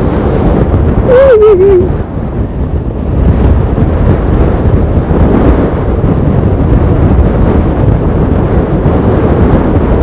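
Heavy wind buffeting the microphone on a motorcycle at highway speed in a strong, gusty crosswind, a dense low rumble that swells and eases. About a second in there is a brief wavering vocal sound that falls in pitch.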